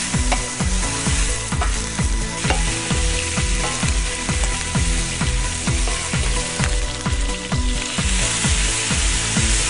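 Pieces of rabbit sizzling as they brown in a hot wok, stirred with a wooden spoon. The sizzle swells near the end as red wine is poured in to deglaze the pan. Background music with a steady low beat plays throughout.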